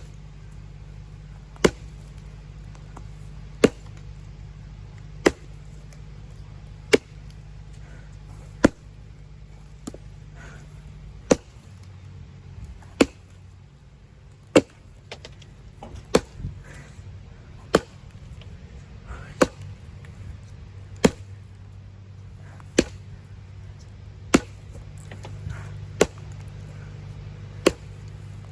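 Axe chopping into pine wood while limbing a fallen tree: single sharp strikes at an even pace, about one every second and a half. A steady low hum runs underneath.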